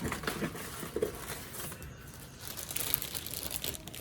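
Plastic bags holding model-kit parts runners crinkling and rustling as they are handled, with a few light clicks of plastic.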